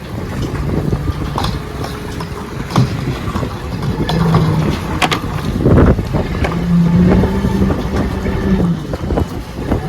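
Fishing boat's engine running, with wind buffeting the microphone and scattered knocks on deck. A low hum swells briefly about four seconds in and again for a couple of seconds in the second half.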